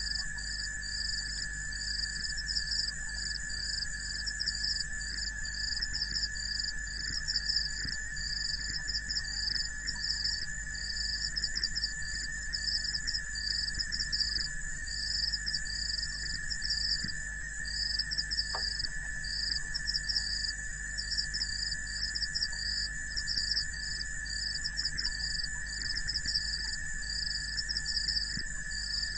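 Chorus of insects at a waterhole: a high pulsing chirp about once a second over steady, unbroken high drones.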